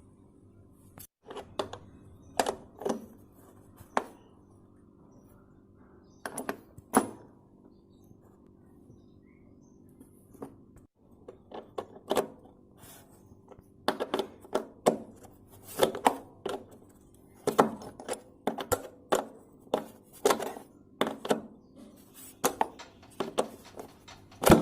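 Washing machine running with a steady low hum and irregular sharp knocks and clatter, sparse at first and more frequent in the second half: the loud noise the machine makes on its cycle.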